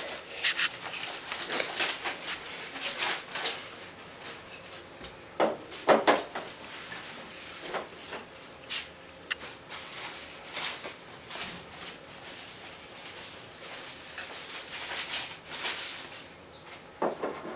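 Irregular clicks, knocks and rustles of handling as a TV stand and its parts are unpacked and fitted. The loudest knocks come about five and six seconds in and again near the end.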